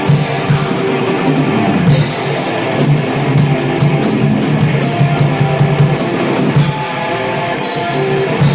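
A rock band playing live with distorted electric guitars and a drum kit, busy with cymbals and fast drum hits.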